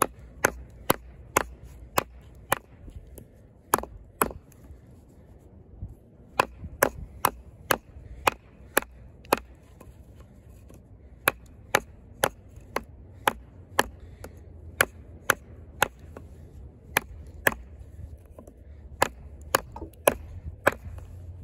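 Fixed-blade knife with a 420HC steel blade chopping into a hard piece of wood, working through a knot: sharp wooden strikes about two a second, in runs with two short pauses.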